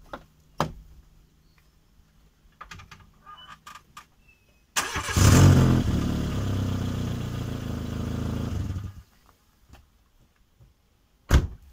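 A car's starter cranks briefly about five seconds in and the engine catches at once, runs steadily for about four seconds, then stops suddenly. It starts on a battery that had been run completely flat and was recharged with a welding machine. A thump comes shortly after the start and another near the end.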